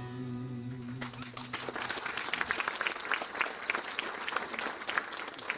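An audience applauding as a song ends. The song's last held note dies away in the first second and a half, and clapping starts about a second in and carries on.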